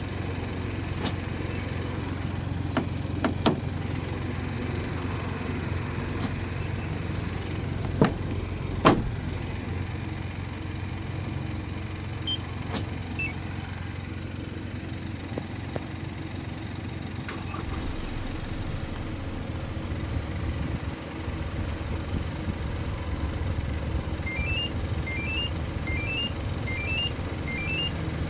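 A Hyundai Porter 2 truck's diesel engine idling steadily, with a few sharp clicks and knocks. Near the end come five short, rising electronic beeps, evenly spaced.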